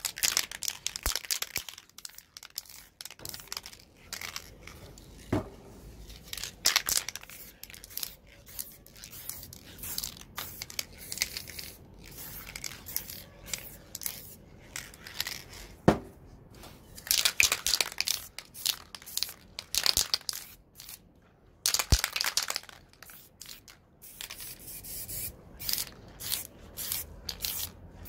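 Aerosol spray-paint cans sprayed onto poster board in many short, irregular hissing bursts, with a few sharp knocks.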